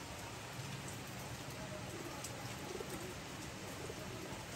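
Steady rain falling into a puddle and on a wet rooftop, with a rock pigeon cooing a couple of times around the middle.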